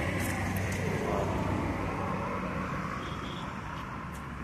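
A passing motor vehicle's engine hum on the road, fading away.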